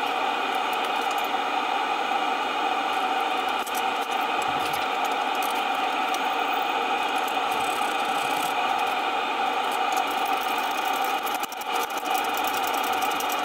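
A machine running steadily: an even mechanical drone with no rhythm, unchanging throughout.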